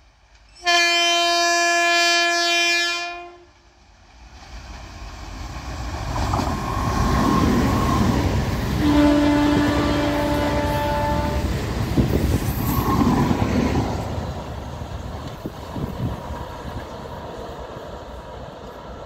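MEMU electric multiple-unit train passing by: a long horn blast about a second in, then the rumble of wheels on rail builds as it approaches. A second long horn blast comes as it draws level, and the rumble fades as the train moves away.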